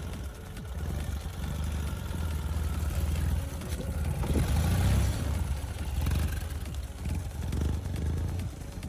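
Ural Gear Up sidecar motorcycle's boxer-twin engine running, getting louder about four seconds in, then easing off.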